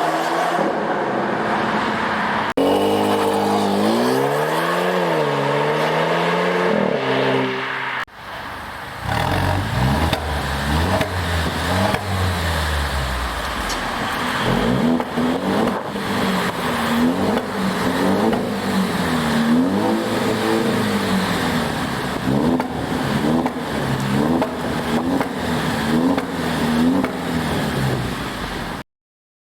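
Alfa Romeo Giulia 2.0 TBI's turbocharged four-cylinder engine through a custom cat-back exhaust, revved repeatedly with rising and falling pitch. About eight seconds in the sound drops briefly, then gives way to a deep, heavy stretch of running, followed by quick rev blips about once a second. It stops abruptly near the end.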